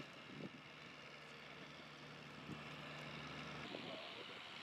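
Faint, steady engine hum under outdoor harbour background noise, with a light rush of wind. The hum cuts off abruptly about three and a half seconds in, leaving the background noise.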